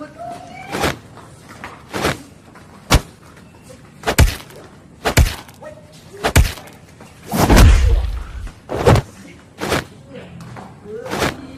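Dubbed fight sound effects: a string of sharp punch and kick hits, about one a second, with one longer, heavier hit with a deep low thud a little past the middle.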